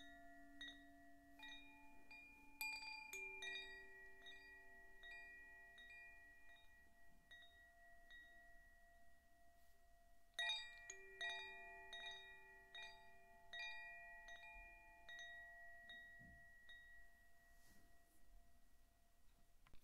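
Zaphir 'Sufi' chime, a tuned cylinder wind chime, being struck by its swinging clapper. It gives soft, bell-like notes that ring on and slowly fade, with a few strikes in the first few seconds and a fresh cluster of strikes about halfway through as the chime is set swinging by hand.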